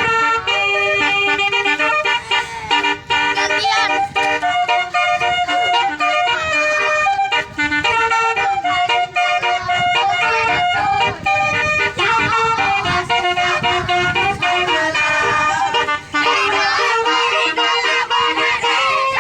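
A basuri multi-note vehicle horn set playing a song melody. It sounds loud, sustained horn notes that step from one pitch to the next without pause.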